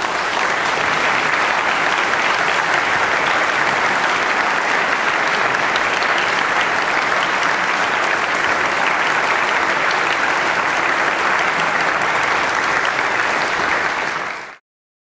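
Audience applauding steadily, a dense even clapping that cuts off abruptly near the end.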